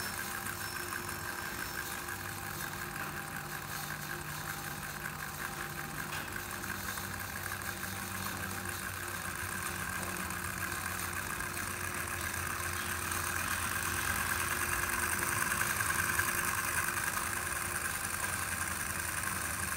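Sixteen-cylinder swash-plate hot-air Stirling engine model running on its butane burner: a steady mechanical whirr from the pistons and spinning propeller. It grows louder over the first fifteen seconds or so as the engine picks up speed.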